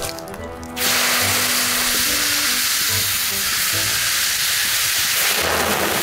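Fire-heated gabbro-diabase sauna stone going into water in a carved wooden cup: a sudden loud sizzling hiss starts about a second in and keeps on as the water boils around the hot stone.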